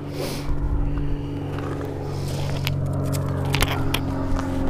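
A steady low motor hum, with a short scrape at the start and a run of sharp clicks and crackles in the middle.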